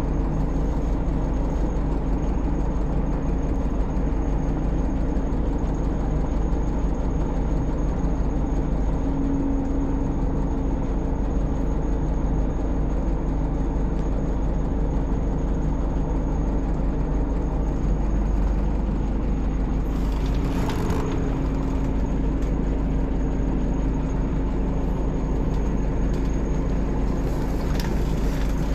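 Scania K360IB bus's DC13 inline-six diesel engine running steadily. A brief hiss cuts in about twenty seconds in, and a fainter one comes near the end.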